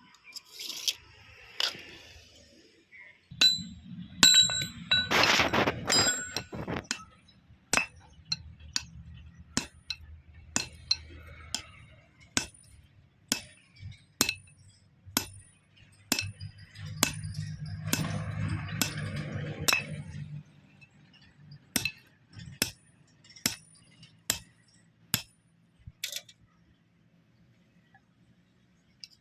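Metal striking an iron bar: sharp clinks at a steady pace of about one a second, each with a short high ring, over a low steady hum. Two louder noisy stretches of work come near the start and about two-thirds of the way through.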